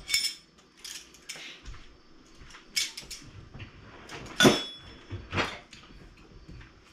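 Kitchen drawer being opened and shut, with metal utensils clinking, among scattered clicks and knocks of kitchen things being handled; the loudest knock comes about four and a half seconds in.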